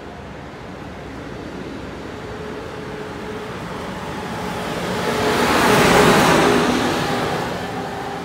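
Amtrak Acela Express trainset passing a station platform: a rushing noise with faint steady whining tones that swells to a loud peak about six seconds in, then fades.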